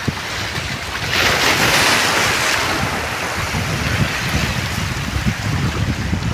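Sea surf washing over a rocky shore, with one louder surge of breaking water about a second in. Wind buffets the microphone throughout, giving a low rumble.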